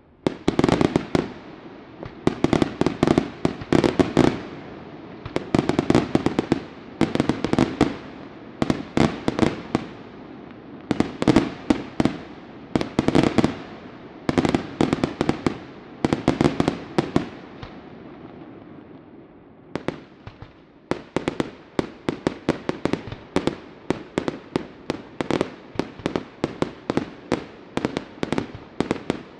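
Fireworks display: clusters of many sharp bangs from bursting aerial shells, one cluster every second or two, then a brief lull and a fast, even string of single reports from about two-thirds through.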